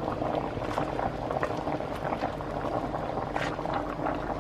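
Pot of pork sinigang broth at a rolling boil, bubbling and popping steadily.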